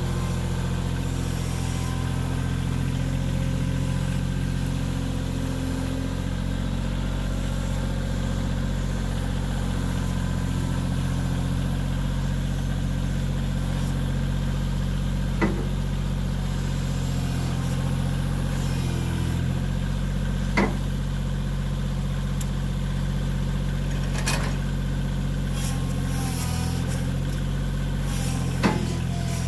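Wood-Mizer LT15GO sawmill's gasoline engine running at a steady speed, with four sharp knocks spaced a few seconds apart in the second half.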